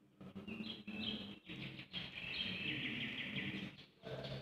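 Small birds chirping, a busy run of short high calls over a faint low hum.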